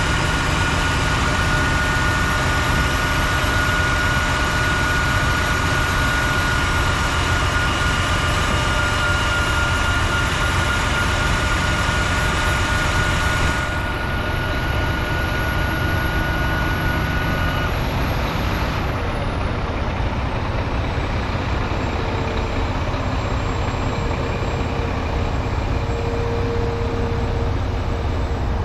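Diesel engine of a 2011 Mack GU713 quad-axle dump truck running steadily with the dump body raised, with a steady high whine over it that stops about two-thirds of the way through.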